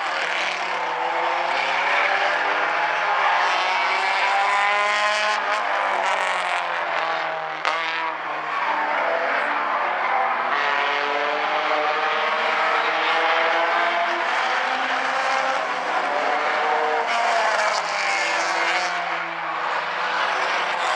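A field of Bumblebee-class race cars running together on a short oval, several engines at once at different pitches, each rising and falling as the drivers accelerate and lift through the turns.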